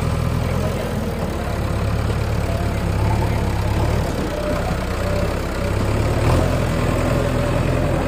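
JCB backhoe loader's diesel engine running steadily at low revs as the machine moves slowly, with one short knock about six seconds in.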